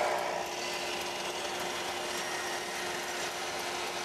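Makita LS1013 10-inch slide compound miter saw running with a steady motor whine, its blade cutting through a walnut chair crest rail to leave a flat machined surface.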